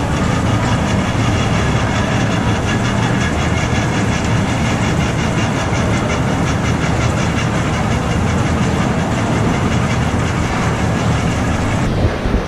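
Factory confectionery machine running loudly and steadily, with a fast, even clatter of about four beats a second that stops near the end.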